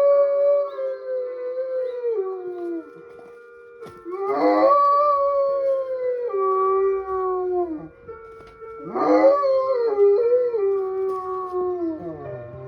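A dog howling along with the noon chime. There are three long howls, near the start, about four seconds in and about nine seconds in, each swelling up and then sliding down in pitch, over the chime's steady melody.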